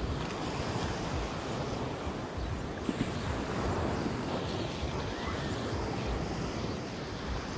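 Surf washing onto a sandy beach, a steady rushing noise, with wind gusting on the microphone.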